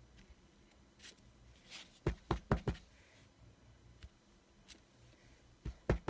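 Clear acrylic stamp block tapped down repeatedly onto a Distress Oxide ink pad to ink the stamp: a quick run of four dull knocks about two seconds in, and two more near the end.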